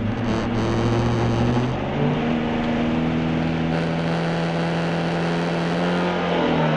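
Rally car engine running at steady, held revs, its pitch stepping up about two seconds in, holding level, then easing down slightly near the end.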